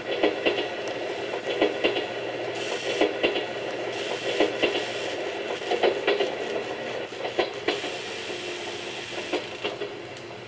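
Simulated train running sound from a TOMYTEC JNR 101 series cab-style sound controller for analog N-gauge: a rail-joint clickety-clack in pairs about every second and a half over a steady hum. Near the end the pairs come further apart and the sound gets quieter, as if the train is slowing.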